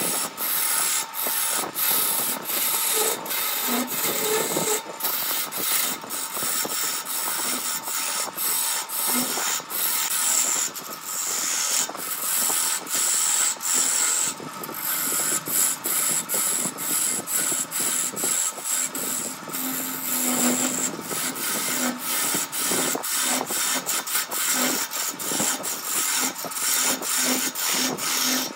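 Wood lathe turning a wood blank while a gouge cuts into it: a continuous scraping hiss of the tool peeling shavings, broken by frequent sharp ticks, over a faint steady whine of the lathe.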